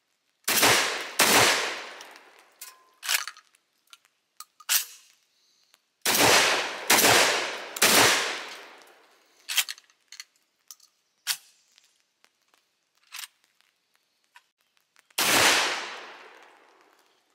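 Vepr 12 12-gauge semi-auto shotgun firing six shots in uneven groups: two close together, a pause, three in quick succession, a long pause, then one more, with lighter clicks and knocks in the gaps. The shooter blames the halting run on the AK-pattern shotgun not working reliably.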